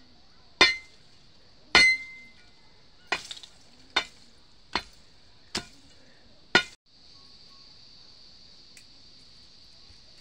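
A long metal bar jabbed down into stony soil, striking seven times with a sharp metallic clink, roughly once a second, then stopping suddenly. A steady high hiss runs underneath.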